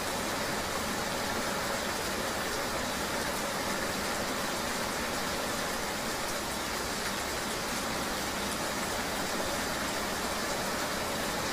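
Steady ambience of riding in the rain: an even hiss of rain and road noise over a low, steady vehicle hum, unchanging throughout.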